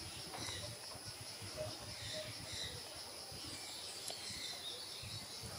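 Faint outdoor ambience: a steady high-pitched insect buzz with a few scattered faint bird chirps over a low rumble.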